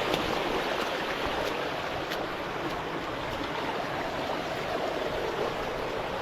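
Creek water rushing and splashing steadily through a slot canyon.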